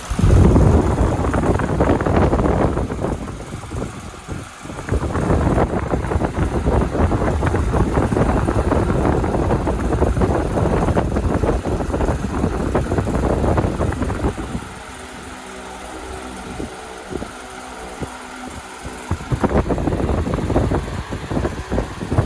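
Arge Max 60 cm wall fan running, its airflow making a loud rushing rumble on the microphone. For a few seconds after the middle the rush eases and the motor's steady hum comes through, before the rush returns.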